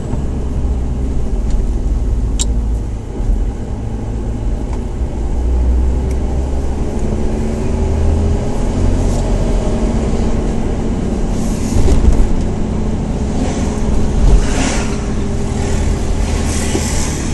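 Nissan Patrol 4x4 driving in town, heard from inside the cabin: a steady low engine rumble with road noise. A single sharp click about two and a half seconds in, and a few brief swells of louder noise in the second half.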